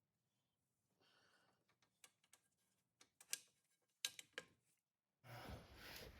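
Faint scattered clicks and light metal taps of hand tools and hub bolts being handled during a wheel bearing job. About five seconds in, a louder rustling and shuffling starts.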